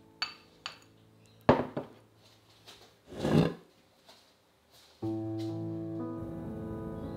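Kitchenware handled on a countertop: two light clicks, a sharp knock about a second and a half in with a smaller one just after, and a brief scrape around three seconds in. Background music comes back in at about five seconds.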